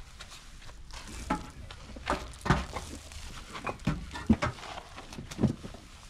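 Stiff grass broom brushed and slapped against a cement-plastered parapet wall, making a series of irregular swishes and taps, with about half a dozen louder strokes.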